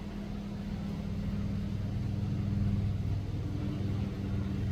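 An airplane flying over: a low, steady engine drone that swells gradually over the first few seconds and then holds.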